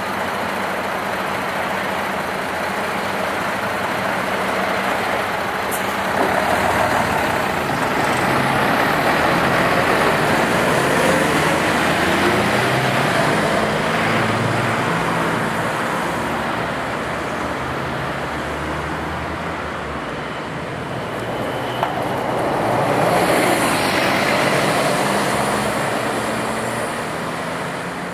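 Road traffic ambience: motor vehicles running and passing, the noise swelling louder about a third of the way in and again near the end, with one short click about three quarters of the way through.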